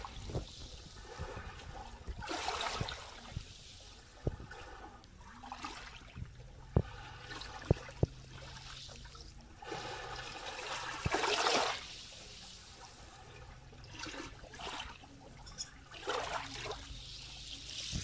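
Small waves lapping and washing up a shallow sandy shore, swelling and fading every few seconds, with a few sharp clicks near the middle.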